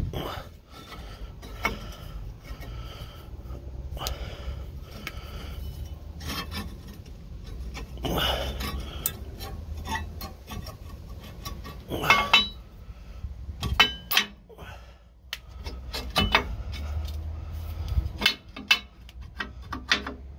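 A tack-welded steel bracket clinking, knocking and scraping against a motorhome's leaf spring and frame as it is worked into place by hand for a test fit. It is a tight fit. The sharp metal knocks come at irregular intervals over a low steady rumble.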